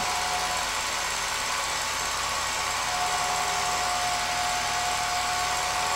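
Home-movie film projector running: a steady motor whir with a fixed whine, which grows stronger about halfway through.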